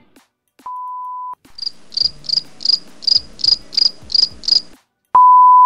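Edited-in cricket-chirp sound effect, about nine chirps at roughly three a second, set between two short steady electronic beep tones; the second beep, near the end, is the loudest sound.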